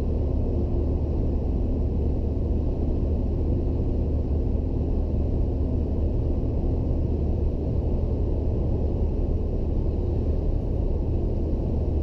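Steady low rumble of road and engine noise inside a car cruising at motorway speed.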